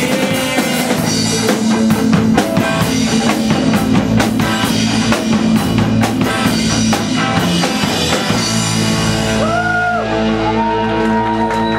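Live rock band playing loud: drum kit with crashing cymbals, electric guitar and bass, with a man singing. About nine seconds in the drumming thins out and held, bending notes ring on as the song winds down.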